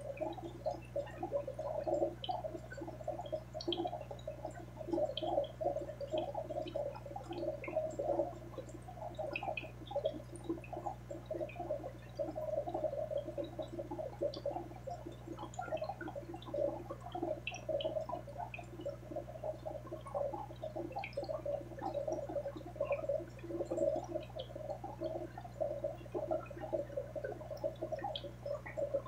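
Aquarium water bubbling and gurgling continuously, with small scattered pops, over a steady low hum of the tank's equipment.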